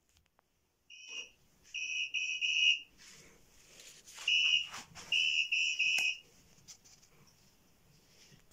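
A shrill, steady high-pitched tone sounding in short blasts: one brief blast, a run of three, then after a pause one more and another run of three. Faint clicks and handling noise fall between the groups.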